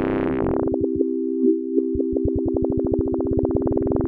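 Xfer Serum software synthesizer holding a tone while an LFO chops it into fast, even pulses as the LFO rate is swept in hertz. The pulsing smooths into a steady buzzy tone about a second in, then comes back about two seconds in and speeds up toward the end.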